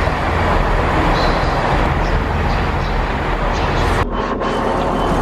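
Steady low rumble of a passenger train standing at a station platform with its engine running, heard while walking alongside it and stepping aboard. The sound briefly thins about four seconds in.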